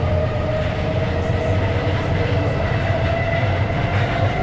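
Paris Metro MF67 steel-wheeled train running, with a steady low rumble and a motor whine that rises slowly in pitch.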